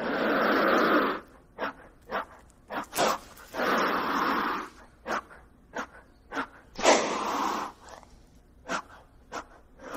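Gila monster hissing: three long, breathy hisses about three seconds apart, with short, sharp puffs between them.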